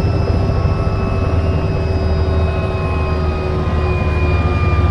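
Helicopter heard from inside the cabin: a steady, loud low rotor thrum with thin whining tones above it that sag slightly in pitch.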